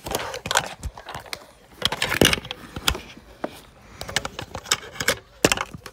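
Close handling of a children's board book as a page is turned: a run of clicks, knocks and rubbing of the stiff pages and plastic cover, loudest about two seconds in.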